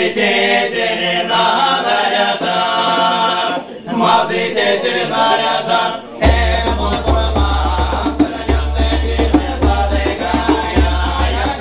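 Male voices singing an Erzya folk song together in their own language. About six seconds in, a hand drum starts beating a steady rhythm under the singing.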